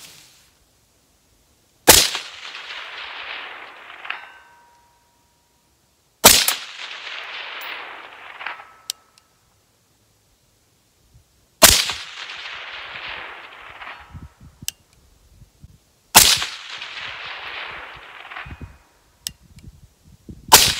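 Five shots from a suppressed AR-15 with a 10.5-inch 5.56 barrel, about four to five seconds apart. Each shot is followed by a rolling echo lasting about two seconds, and after some shots a faint ring comes back from the distant steel target.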